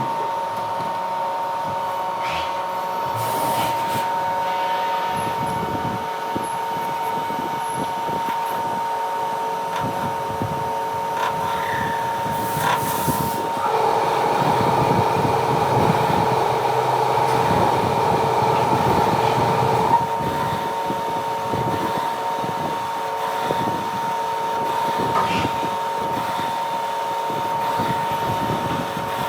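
CNC lathe running, with a steady high whine over machine noise. About halfway through, a louder cutting noise starts and lasts about six seconds before stopping abruptly.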